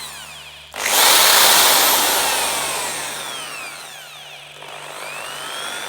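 Corded Black & Decker hammer drill running with no load in normal drill mode: the motor spins up sharply about a second in, then winds down with a falling whine. A second, gentler trigger pull near the end brings the whine up and back down.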